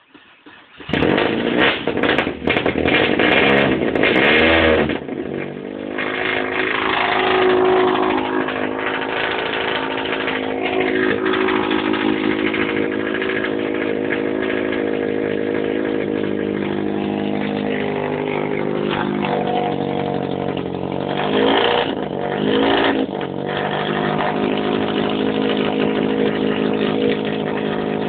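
Opel Manta rally car's four-cylinder engine starting about a second in and revving hard for a few seconds, then settling into a steady idle, with two quick throttle blips a little after twenty seconds.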